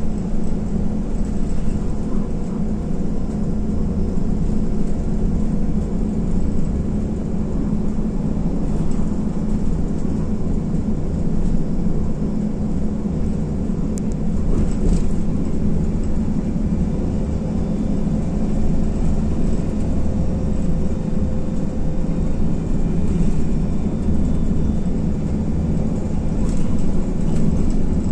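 Steady drone of an IVECO Crossway LE bus's Cursor 9 six-cylinder diesel engine and running noise, heard from inside the cabin, with a few faint clicks.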